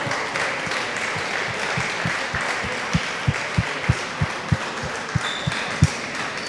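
Audience applauding, with a run of regular low thumps, about three a second, in the middle.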